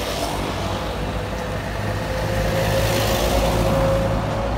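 A bus driving past on the road, its engine running with a steady hum and a sustained whine that grows louder as it nears, loudest about three to four seconds in, then fading as it passes.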